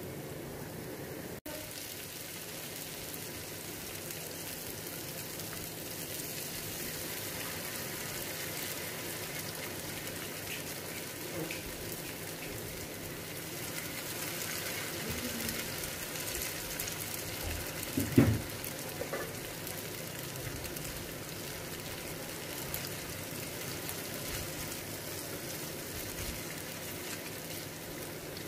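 Ghewar batter frying in hot oil in a non-stick kadai: a steady sizzle of frothing oil as batter is poured into it in thin streams. A single sharp knock about 18 seconds in.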